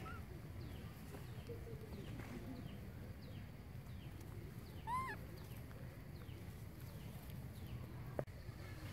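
A baby macaque gives one short squeal that rises and falls in pitch, about halfway through. Faint short high chirps repeat over a low steady background, and there is a sharp click near the end.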